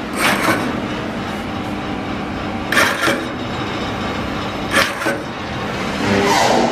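Control-panel keys on a CNC plasma cutter's Starfire controller clicking as they are pressed and released: three double clicks about two seconds apart over a steady machine hum, with a short louder noise near the end.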